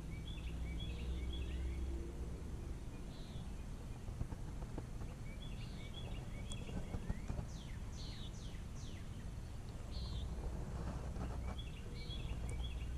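Songbirds singing: short phrases of chirping notes repeating every two or three seconds, with a run of about five quick downward-sweeping notes about two-thirds of the way through, over a low steady rumble.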